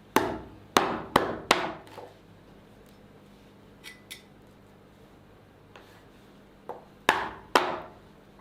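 Sharp knocks, like hammer or wooden strikes: four in quick succession in the first two seconds, two faint ticks midway, then two more loud knocks near the end, each ringing out briefly.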